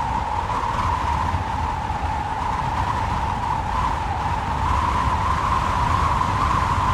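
Strong wind blowing steadily, with a whistling howl held around one pitch that wavers slightly, over a low rumble; it swells a little near the end.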